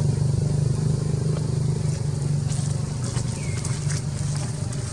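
A motor engine running steadily as a low drone, with a few sharp clicks and a brief high call about three and a half seconds in.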